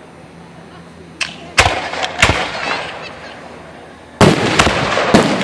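Aerial firework shells bursting: a small pop about a second in, then two loud bangs about half a second apart, each trailing off. Another loud bang comes near the end, followed by a long dense tail and one more bang.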